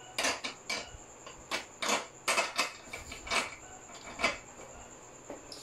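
A series of irregular short clicks and scrapes as the bag section of a freestanding punching bag is twisted onto its threaded post.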